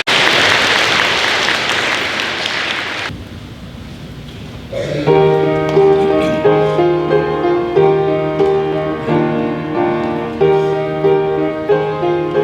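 Audience clapping for about three seconds, then after a short lull a piano begins a song's introduction, playing chords in a steady repeating rhythm.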